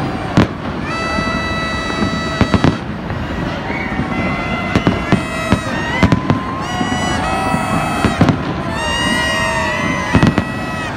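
Rooftop fireworks display going off: sharp bangs and crackles in quick, irregular succession, with steady held tones underneath.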